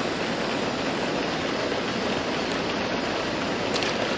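Steady rushing-water hiss, even and unbroken, with no change in level.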